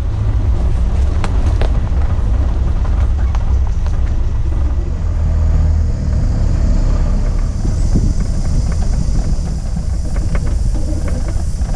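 Four-wheel-drive vehicle driving slowly over a rough bush track, heard from a camera mounted on the outside of the vehicle: a steady low rumble of engine and tyres, with scattered clicks and knocks from the bumpy ground and scraping brush.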